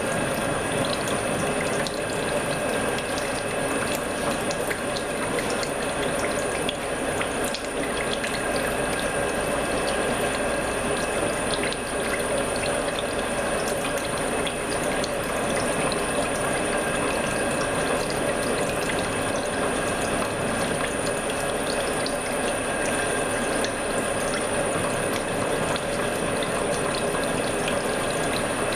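CNC milling machine cutting a helical gear with a hob: steady machine running with a high, steady whine and a dense crackle of small cutting clicks.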